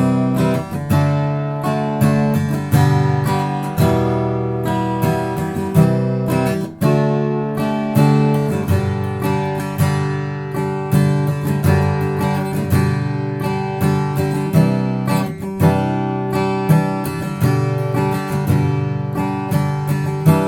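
Background music: acoustic guitar strumming and picking a steady rhythm.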